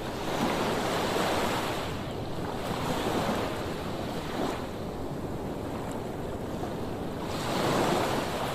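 Sea waves breaking against rocks along the shore: a hiss of surf that swells and falls away in several surges, one wave after another.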